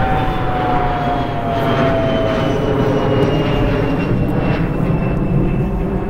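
Airplane flying over: a loud, steady engine noise whose pitch falls slowly as it passes.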